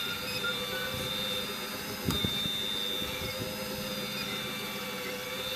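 Hydraulic pump of a radio-controlled scale excavator running with a steady whine, with a few low knocks about two seconds in.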